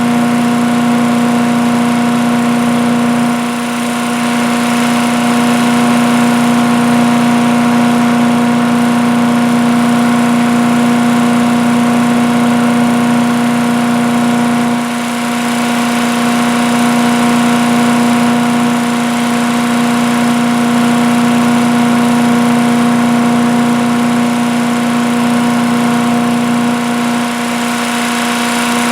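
Earthquake 212cc wood chipper-shredder running steadily, its single-cylinder gas engine at a constant speed under the hum and rush of the machine. The loudness dips briefly three times, about three and a half, fifteen and twenty-seven seconds in.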